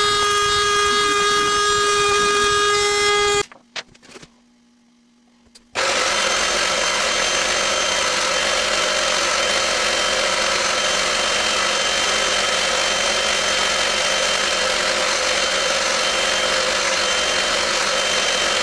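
A small high-speed power tool runs with a steady high whine, stops about three and a half seconds in, and after a couple of nearly quiet seconds is running again, now with a loud rough grinding noise over a fainter whine.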